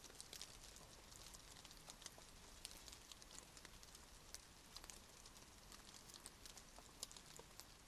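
Faint rain with scattered raindrops ticking irregularly over a soft hiss.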